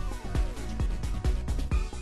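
Electronic background music with a steady, driving kick-drum beat and a synth tone that slides downward near the start.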